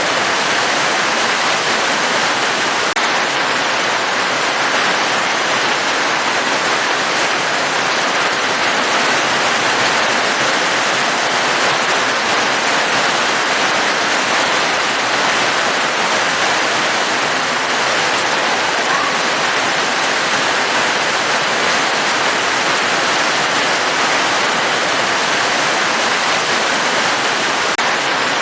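Steady rain falling, an even rushing hiss with no single drops standing out and no change in strength.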